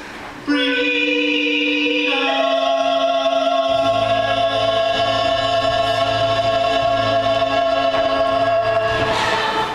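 A choir singing a long held chord. It enters about half a second in, shifts once about two seconds in, and is held until it stops near the end.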